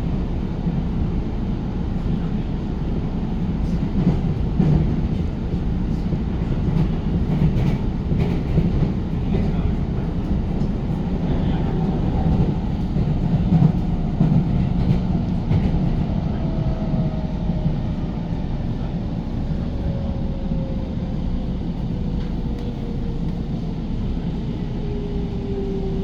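Electric commuter train's running rumble heard from inside the coach, with a few faint clicks, and from about halfway a motor whine that falls steadily in pitch as the train slows to stop at the station.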